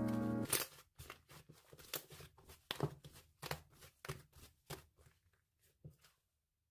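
Slime being worked by hand, giving a string of irregular clicks and small pops, after a song with piano cuts off about half a second in.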